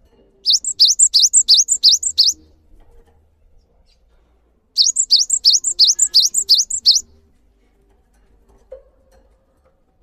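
Cinereous tit (gelatik batu) singing: two phrases of quick, repeated high notes, each about two seconds long and a couple of seconds apart.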